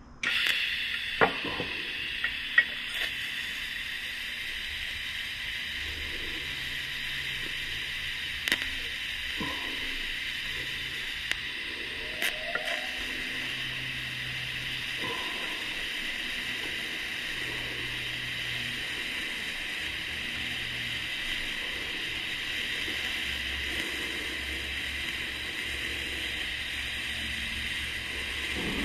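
Electric welding arc struck and burning steadily, a continuous even hiss that starts abruptly as the arc lights, with a few sharp ticks in the first dozen seconds.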